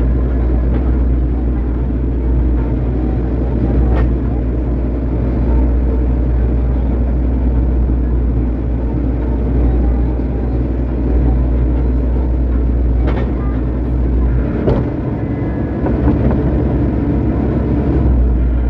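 Hydraulic excavator's diesel engine running steadily under working load as the bucket scrapes and levels dirt, with a few short knocks, the last of them about three quarters of the way in.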